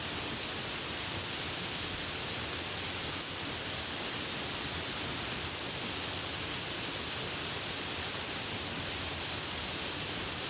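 Steady rain falling, an even hiss with no thunder or separate drops standing out.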